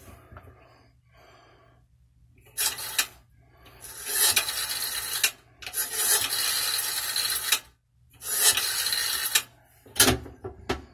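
Rotary dial of an old three-slot coin payphone being wound and released, whirring back four times in rasping runs of about one to two seconds each. A few sharp clicks come near the end.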